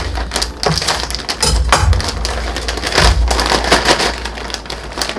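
Plastic snack bag crinkling and rustling as it is handled and torn open, an irregular dense crackle.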